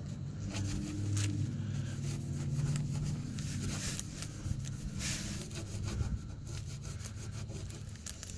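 Cloth rag rubbing and wiping across a fiberglass boat hull with acetone, in short repeated strokes, over a low steady hum.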